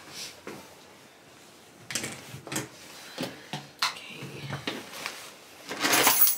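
A puffer jacket being handled and pulled on: scattered rustles and small knocks, then a loud swishing rustle near the end.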